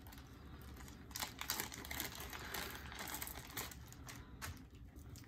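Tissue paper and plastic packing wrap crinkling as it is handled and pulled open by hand: a run of irregular rustles and crackles, busiest in the middle.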